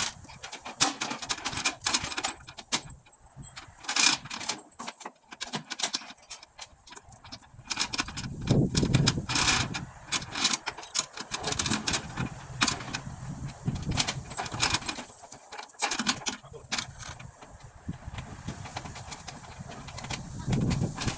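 Irregular clicks, clinks and knocks, spaced unevenly.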